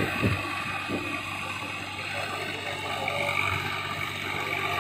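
Swaraj 744 FE tractor's three-cylinder diesel engine running steadily at a distance, working under load through deep mud. A couple of low thumps in the first second, like wind on the microphone.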